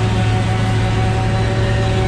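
Heavy farm machinery running steadily under load: a constant low engine hum with a steady whine over it.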